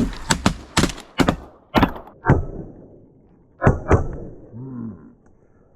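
A rapid series of sharp knocks and clunks, about ten in the first four seconds, then quiet.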